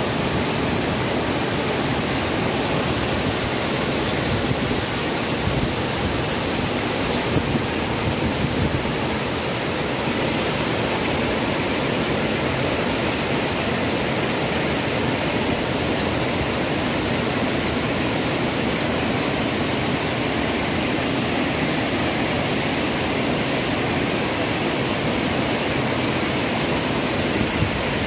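Waterfall: falling water rushing steadily, an even hiss that holds unbroken throughout.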